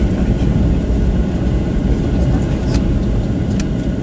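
Cabin noise of a Boeing 737-800 taxiing after landing: a steady low rumble from its engines and its wheels rolling on the taxiway. Two short clicks come in the second half.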